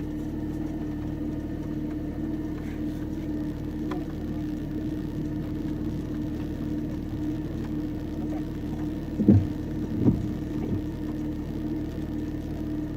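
Car engine running with a steady low hum. Two dull thumps come about a second apart near the end.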